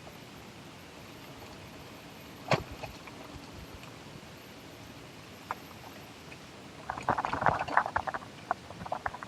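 Full-suspension mountain bike riding down a rough dirt trail: a steady rolling noise, a single sharp knock about two and a half seconds in, and a burst of rattling and clattering from the bike over rough ground near the end.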